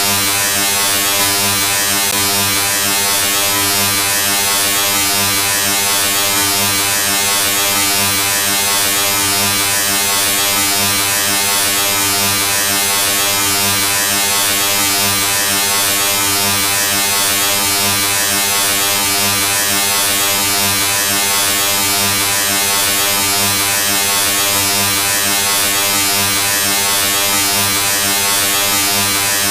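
Steady, unchanging electric buzz: a low hum with many overtones under a bright hiss.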